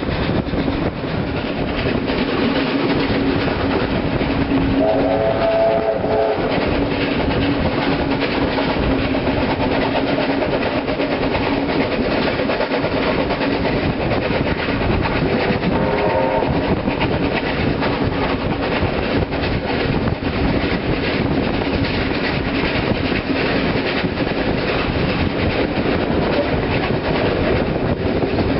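NSW steam locomotives 3265, 3526 and 3642 working hard together at the head of a train, a loud continuous noise of steam exhaust and wheels on rail. A steam whistle sounds briefly twice, about five seconds in and again about sixteen seconds in.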